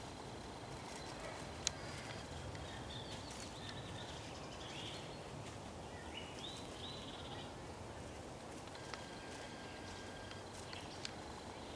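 Quiet woodland ambience: a steady low background hush with a few short, high chirping calls about a third of the way in and again past the middle, and an occasional sharp click.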